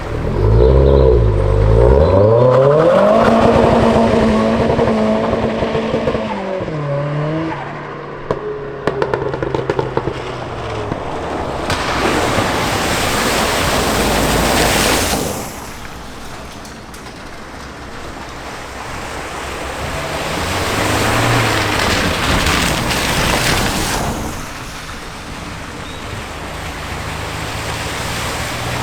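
Car engine revving, its pitch rising and falling, then loud rushing splashes of water as a car ploughs through a flooded ford. A second swell of splashing builds and fades later.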